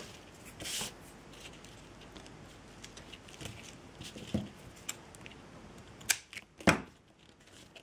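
Quiet handwork with jute thread and small tools: scattered light clicks and faint rustles, with two sharper clicks a little after six seconds in.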